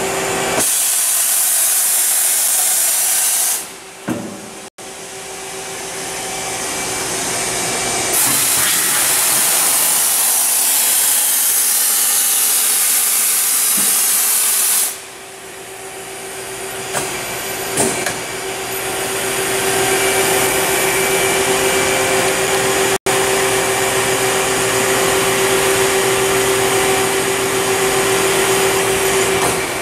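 Mori Seiki NT1000/SZM CNC turning and milling center running under power: a loud hissing rush comes twice, the second lasting about seven seconds, and after that a steady mechanical whine holds to the end.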